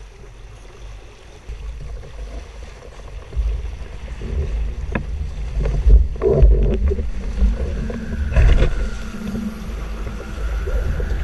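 Wind buffeting the microphone and water rushing and splashing along the hulls of a Hobie Wave catamaran as it picks up speed, growing louder a few seconds in. Several sharp slaps come as the hulls hit the waves.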